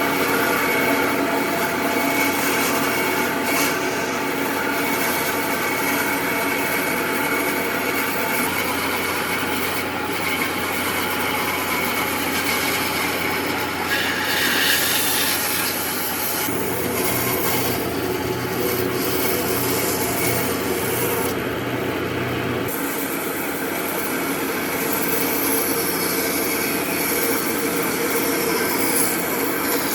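Wood being worked abrasively by a tool, grinding or sanding with a continuous rasping noise. The lower tone changes about 17 seconds in and returns about 23 seconds in, as the tool's load or contact shifts.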